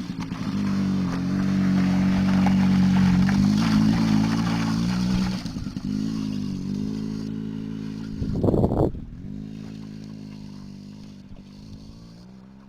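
A small ATV engine running close by, louder for the first few seconds, then fading as the quad moves away. A short rough burst of noise comes about eight and a half seconds in.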